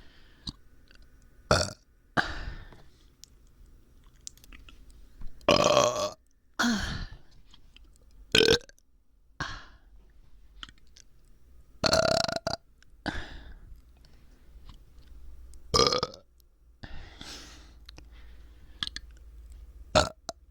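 A person burping repeatedly: about a dozen burps of varying length, one to three seconds apart, some in quick pairs. The burps come from a bloated stomach that the uploader says hurts.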